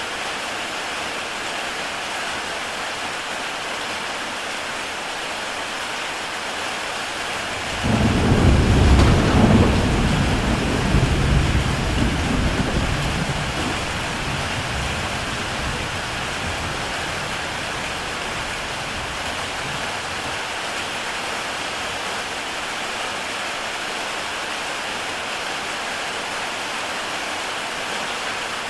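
Heavy rain falling steadily on a tile roof. About eight seconds in, thunder breaks in suddenly with a deep rumble, loudest for a couple of seconds, then rolls away over the next several seconds.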